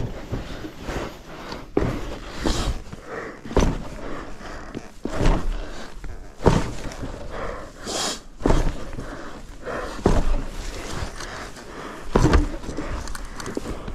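Boots crunching in packed snow in irregular steps, roughly one a second, as a motorcycle is walked forward by the rider's feet.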